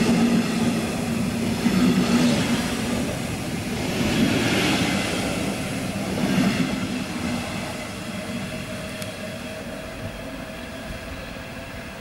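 Double-deck regional train coaches rolling past close by, wheels running on the rails, then the train pulling away, its sound fading steadily over the last few seconds.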